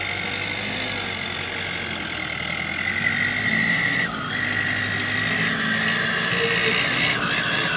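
Mahindra Arjun Novo 605 DI-i tractor's diesel engine running steadily as it pulls a soil-loaded trolley, getting louder about three seconds in.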